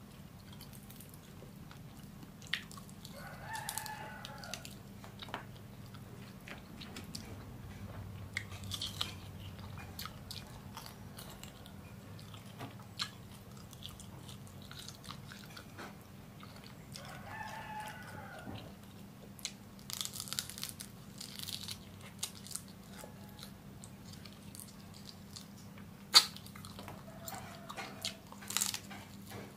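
Crunching and chewing of cooked rhino beetles, their hard shells cracked apart by hand and between the teeth, close to the microphone. A rooster crows twice in the background, near the start and about halfway through.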